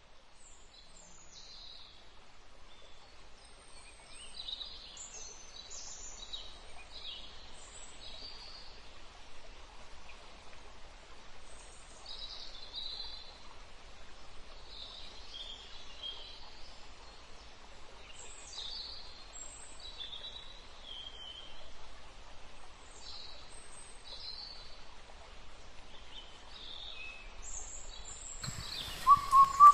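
Forest birds calling: many short, high chirps and whistles, scattered, over a faint steady hiss. Near the end a louder rush of noise cuts in, with a short steady tone.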